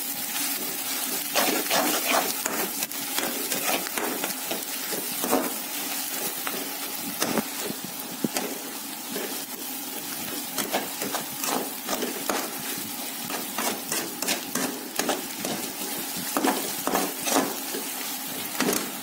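Sliced onions and garlic frying in hot oil in a steel pot with a steady sizzle, while a spoon stirs through them and clicks and scrapes against the pot at irregular intervals. The onions are at the browning stage.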